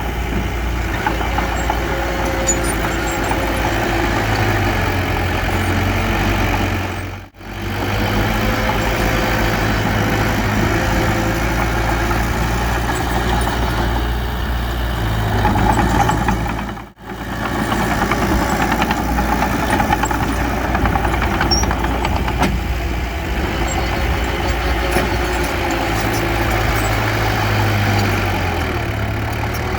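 Diesel engines of heavy earthmoving machinery running steadily with a low drone. The sound cuts out briefly twice.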